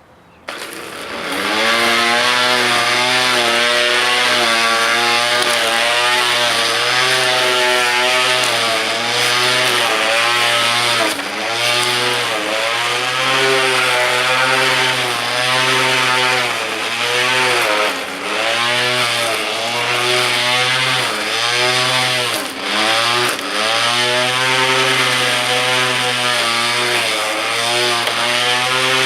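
Electric string trimmer fitted with a 3D-printed blade attachment running: its motor starts about half a second in and runs with a steady pitched hum, dipping briefly several times as it slows and picks up again.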